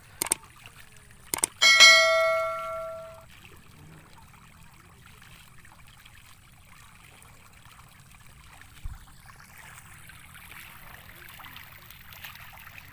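Subscribe-button sound effect: two quick mouse clicks followed by a bright bell ding that rings out and fades over about a second and a half. After it, only faint water noise from the pond.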